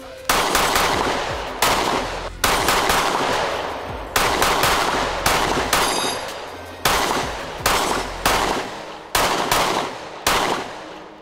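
Springfield Armory XD-M Elite 3.8 compact pistol firing full metal jacket rounds: a string of about a dozen shots at an uneven pace of roughly one a second. Each shot is a sharp crack followed by a fading echo.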